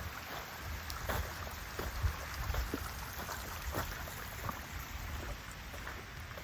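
Rain falling, with scattered drop ticks and a low wind rumble on the microphone.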